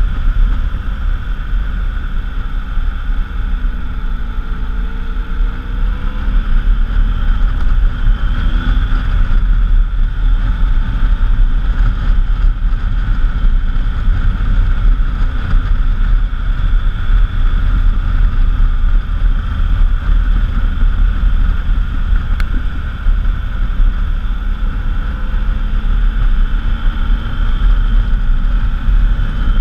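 Triumph Tiger Explorer XC's three-cylinder engine running at riding speed, its pitch dipping and rising with the throttle a few seconds in and again near the end, under heavy wind rumble on the helmet-mounted camera.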